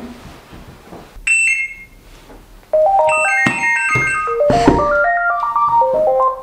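Mobile phone ringing: a short two-note electronic beep, then a quick electronic ringtone melody of stepping notes, rising and falling, that cuts off near the end.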